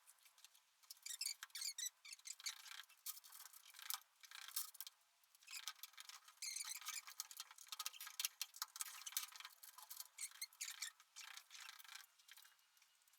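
Faint, irregular clicking and squeaking of hand tools working on metal fasteners and parts during engine removal from an ATV, in uneven spurts with short pauses.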